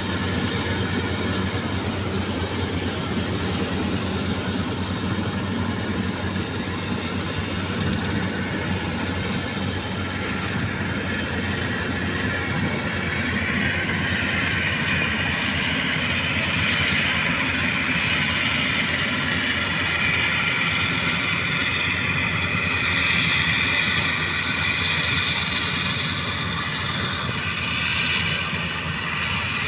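Bimo Maxxi 102 combine harvester running steadily with a continuous engine hum. A brighter mechanical hiss rises over it from about halfway through.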